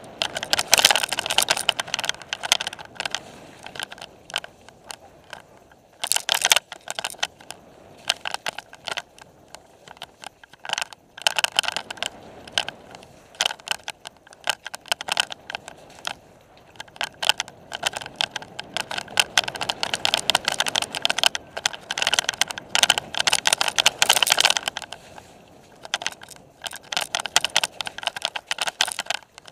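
Bicycle ridden fast down a rough dirt forest trail: the bike and its camera mount rattle and clatter in loud bursts over the bumps, with quieter stretches between.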